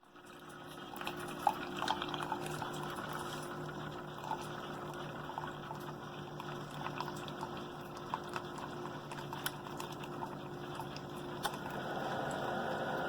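Single-serve pod coffee maker brewing: a steady hum from the machine while hot water runs and bubbles into the cup, with scattered small pops and sputters, growing a little louder near the end.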